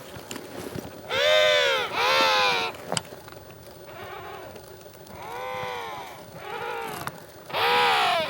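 Emperor penguins calling, several bleat-like calls that swell up and fall in pitch: two loud calls back to back about a second in, two quieter ones later, and another loud call near the end.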